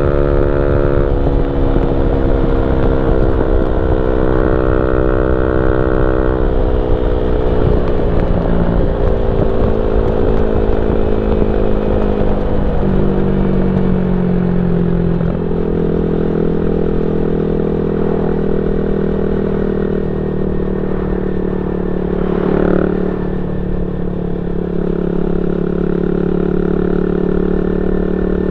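Yamaha Y15ZR's 150cc single-cylinder engine running through a YYPang SD3 aftermarket exhaust on the move, over wind rumble. The engine note sinks slowly, drops in two steps about halfway through, then holds steady at cruise.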